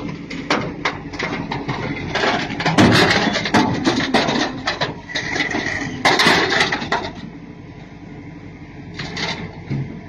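Crawler excavator's steel tracks knocking and clattering irregularly on a trailer deck over a low engine hum. It gets quieter for the last few seconds.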